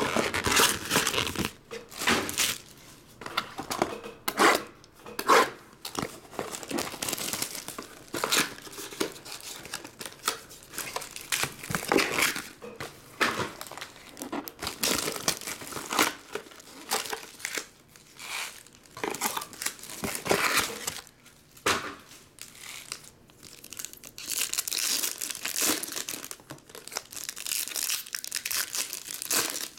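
Plastic shrink wrap and foil trading-card packs crinkling and tearing in irregular bursts as boxes are unwrapped and packs ripped open.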